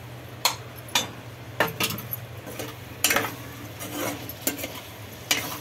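Metal spoon stirring potato cubes and chopped tomatoes in a kadhai, scraping and clinking against the pan at irregular moments, about eight times.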